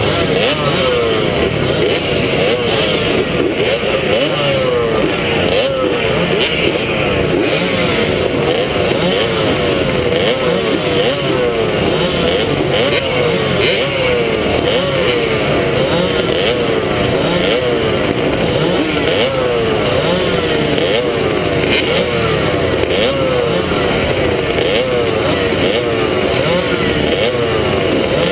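Several 100cc two-stroke motocross bikes revving up and down over and over while held at the start line, the rises and falls overlapping about once a second.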